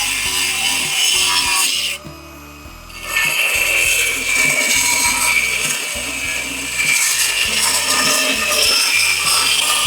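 Scraping, sawing-like tool work on a workpiece, pausing for about a second two seconds in, over background music.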